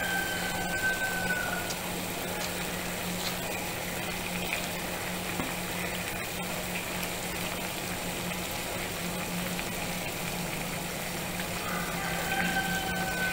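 Water at a rolling boil in a stainless steel saucepan, bubbling steadily over a low steady hum. A high held tone, dropping slightly as it ends, sounds for about two seconds at the start and again near the end.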